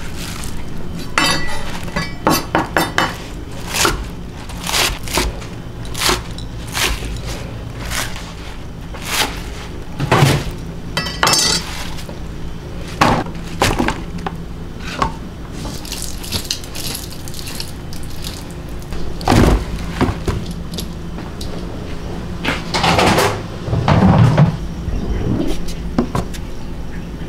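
Kitchen prep: a knife chopping green onions on a wooden cutting board, along with bowls and utensils clattering, heard as irregular sharp knocks, sometimes in quick runs. A steady low hum runs underneath.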